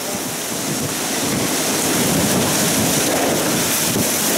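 Thunderstorm of heavy rain and gusting wind, with the wind buffeting the microphone. It grows louder over the first two seconds, then holds steady.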